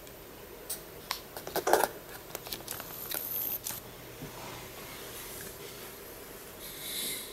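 Camera being handled and repositioned: a few light clicks and knocks in the first two seconds, then a rustle, with a brief soft hiss near the end.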